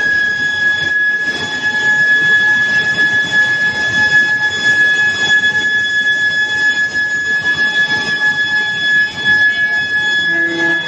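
Steel billet induction heating furnace running: a steady high-pitched whine from the induction coil, held at one pitch, over a rushing mechanical background noise.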